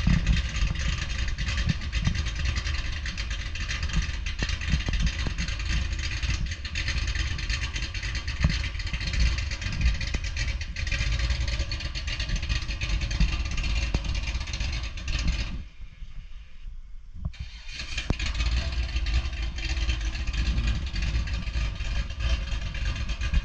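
Holden VN Calais being driven, its engine running with a low rumble under steady road and wind noise, the valved mufflers still closed. About two-thirds of the way through the sound drops away for a couple of seconds, then comes back.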